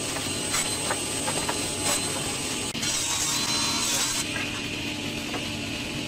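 Sliding table panel saw running with a steady hum, its blade cutting through a wooden board for about a second and a half around three seconds in, a crosscut to length. A few light knocks of the wood being set against the fence come in the first two seconds.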